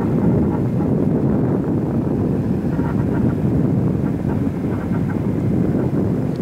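Ignited natural gas blowout at a land drilling rig: gas from a shallow pressurized pocket jetting uncontrolled from the well and burning, a deep, steady rush like a jet engine.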